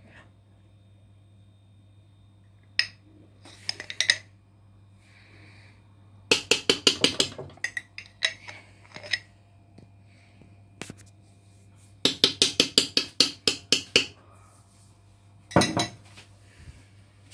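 A metal spoon clinking against a dish in quick runs of taps: two long runs of about eight to ten rapid taps each, with a few shorter clusters of clinks between them, as ghee is spooned over the biryani.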